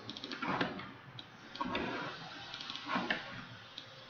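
Computer keyboard keystrokes: a few scattered, irregular clicks as a line of code is edited.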